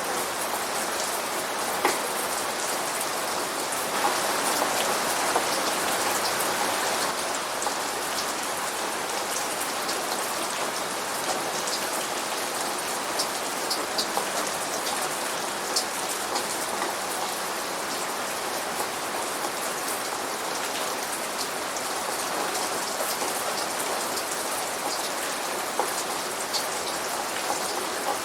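Steady rain falling, an even hiss with scattered louder drops ticking through it. It is the rain effect from the Rainforest Cafe.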